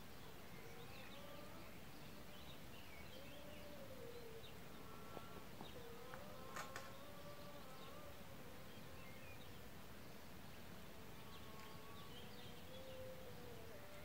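Quiet outdoor ambience: a flying insect buzzing, its pitch wavering slowly as it moves, with small birds chirping faintly. A few light clicks come around the middle.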